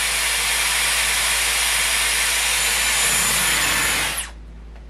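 Dyson Airwrap blowing a steady rush of air through its curling barrel on the cool shot, setting the freshly wrapped curl. About four seconds in it is switched off and the air cuts out with a short falling whine as the motor spins down.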